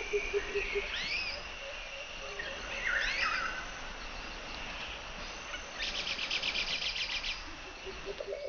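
Birds calling over a steady high insect drone: swooping whistled notes near the first and third seconds and a rapid trill at about six to seven seconds. A low, quickly pulsing call sounds through the first second.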